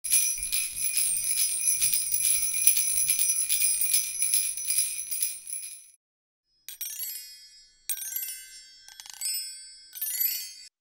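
Sleigh bells jingling fast and steadily for about five seconds, then fading out. After a short gap come four short, bright chime flourishes, each ringing briefly and dying away.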